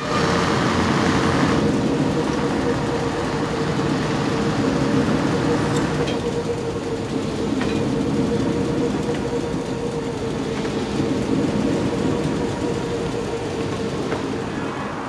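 First-generation diesel multiple unit (a Class 127/114 hybrid) running past at low speed, its diesel engine giving a steady hum with one held whining tone. A few faint clicks are heard along the way.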